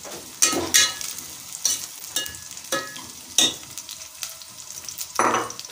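Sliced onions sizzling in hot oil in a metal pot, stirred with a long steel spoon that clinks and scrapes against the pot several times, with a longer scrape about five seconds in.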